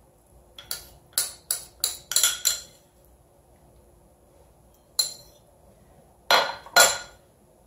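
Metal spoon clinking and scraping against a ricotta tub and a glass baking dish while ricotta is scooped out and spread: a quick run of about six clinks in the first few seconds, one more about five seconds in, and two close together near the end.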